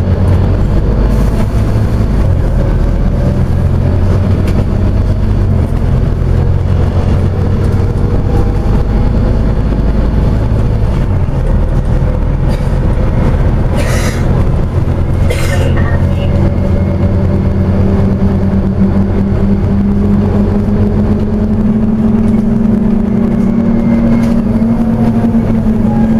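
Scania OmniCity bus's diesel engine and drivetrain heard from inside the saloon, a steady low rumble while the bus is under way. About halfway through there are two short hisses, and soon after a steady whine comes in and rises slightly as the bus picks up speed.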